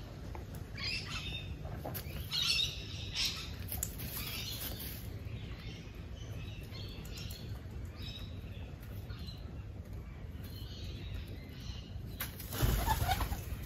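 A few faint, scattered bird chirps from hens and king parrots feeding on seed, over a steady low background hum. There is a brief louder noise about a second before the end.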